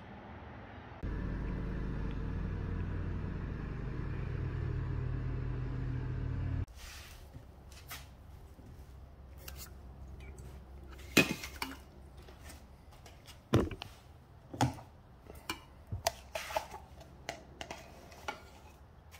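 A steady low hum for several seconds that cuts off abruptly. Then a scatter of clinks and knocks as drink cups, plastic cups and a stainless steel tumbler, are picked up and moved off a cardboard box top, with a few sharper knocks standing out.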